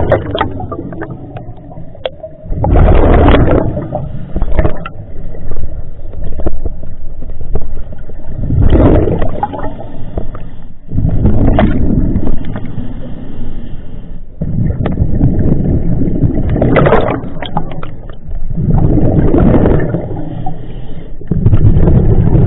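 Scuba breathing through a regulator underwater: loud gurgling bursts of exhaled bubbles every few seconds, about six in all, with a low steady rumble between them.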